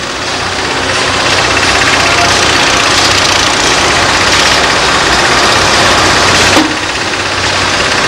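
Diesel engine of a crawler cable excavator running hard under load as it hoists its clamshell grab. The engine builds over the first second or so, then holds loud and steady. A brief sharp sound comes about six and a half seconds in.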